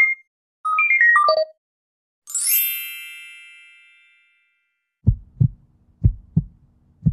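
Intro sound effects: a two-note chime, a quick falling run of bell-like notes, then a bright shimmering sparkle that fades away. After a short gap a heartbeat effect starts, paired low thumps about once a second.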